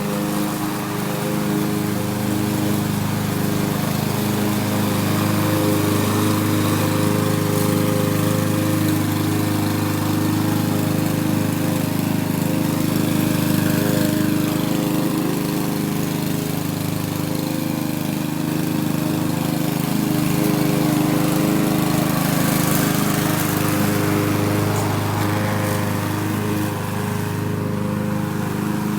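Power lawn mower running steadily while cutting grass, its engine note shifting slightly in pitch as it works.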